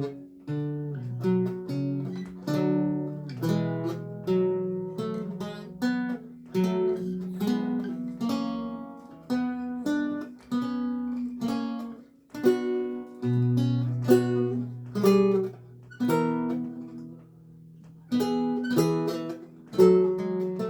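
Solo lute music: plucked notes and chords, each ringing and decaying. A long low note about two-thirds through fades into a short lull before the playing resumes.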